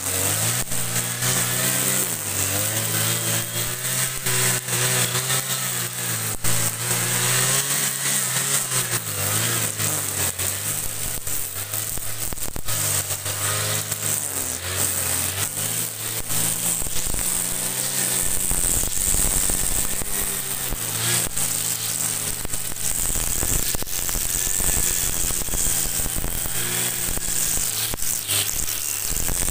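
Kawasaki TJ45 brush cutter's 45 cc two-stroke engine running under load as it cuts through overgrown grass, its engine speed rising and falling with the sweeps, with a steady crackle of clicks throughout.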